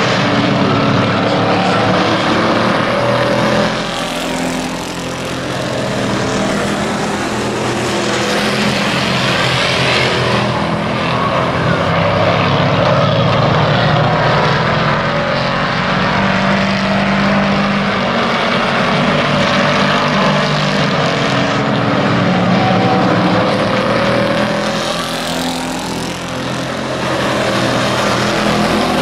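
A pack of hobby-class pickup race trucks running at speed together, several engines at once. The sound swells and eases as the pack goes by, dropping off briefly about four seconds in and again near the end.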